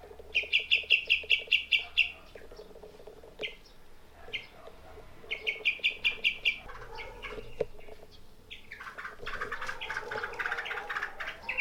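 Yellow-vented bulbuls calling: a run of quick repeated chirps, about six a second, another run a few seconds later, then a busier chattering of mixed notes near the end.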